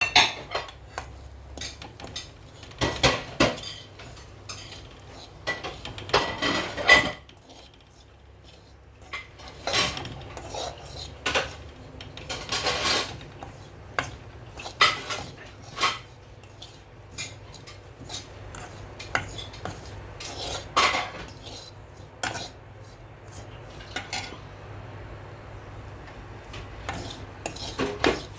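A metal spoon or spatula stirring masala in a metal pan during roasting, scraping and clinking irregularly against the pan, with a few knocks that ring briefly.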